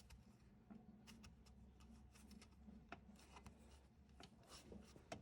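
Near silence with faint scattered clicks and rubbing: a rubber drive belt being worked by hand under the top idler pulley. A faint steady low hum runs underneath.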